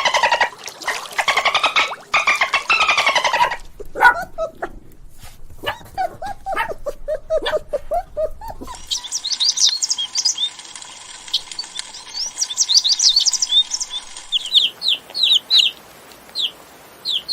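A goat or sheep bleating for the first few seconds, then a run of short, lower animal calls, then small birds chirping rapidly in high, quick notes.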